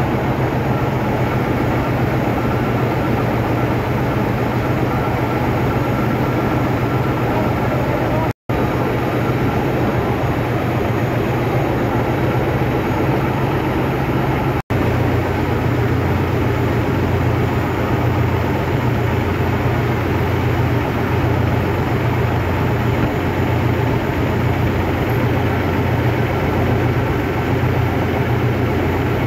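Loud, steady drone of heavy running engine machinery: a deep hum under a wide rushing noise. It cuts out for an instant twice.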